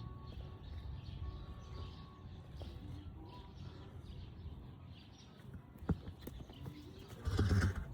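A horse's breathing with a low snoring rumble that keeps going after a ride, and one louder breath near the end.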